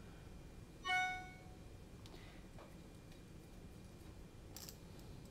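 A single short, clear ringing tone about a second in, fading within half a second, then a few faint clicks of small parts being handled.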